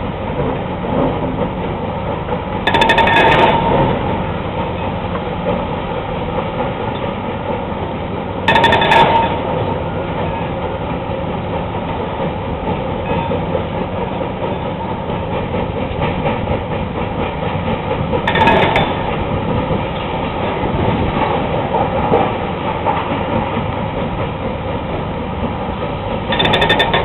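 Rock crusher running with a steady, dense grinding rumble. Four louder clattering surges of about a second each break in, a few seconds apart.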